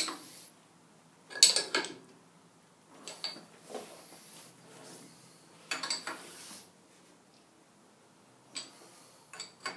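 Metal clinks and rattles of a spanner working on clamp nuts and studs as hold-down clamps are tightened on a cast-iron part. The clanking comes in several short bursts with pauses between, the loudest about a second and a half in.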